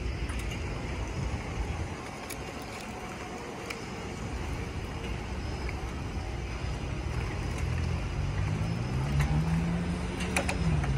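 Low rumble of the departing train fading in the first two seconds. Then a car engine speeds up, its pitch rising and then dropping near the end, as road traffic moves over the crossing.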